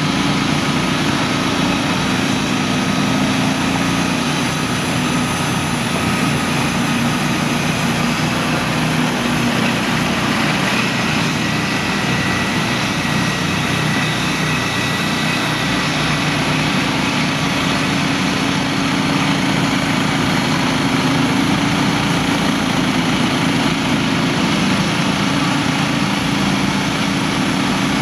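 Norwood Frontier OS-27 manual bandsaw mill running steadily, its small gasoline engine driving the band blade as the saw head is pushed along the track through a log.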